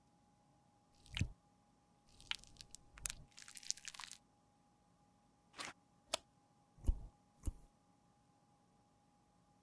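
Plastic lipstick case parts handled and pressed together by gloved hands: a few sharp clicks and knocks, one a deeper thump near the middle, with a short stretch of scratchy rubbing and crackling in the first half.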